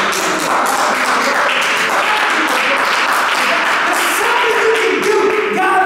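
Congregation applauding, a dense sustained clapping that starts abruptly, with voices rising over it.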